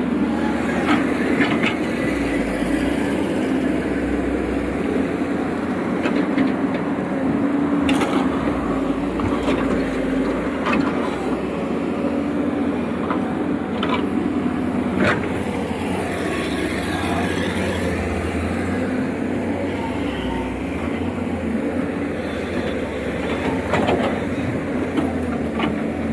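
Excavator's diesel engine running steadily, with a scattering of sharp clanks and knocks from the working machine.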